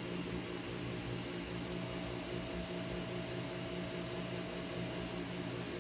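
3D printer's cooling fans running with a steady hum and hiss. A faint higher tone, typical of stepper motors holding, joins about one and a half seconds in and stops shortly before the end.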